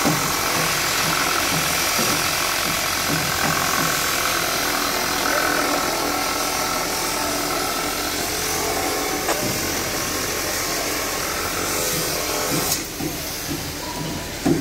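Steady construction-site machinery noise with a power-tool-like whine from about two to seven seconds in. The noise drops away suddenly about thirteen seconds in.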